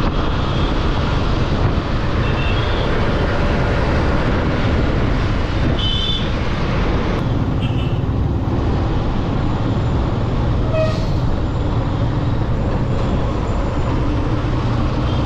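Steady street traffic noise, with short high tones about six and eight seconds in that fit horn toots.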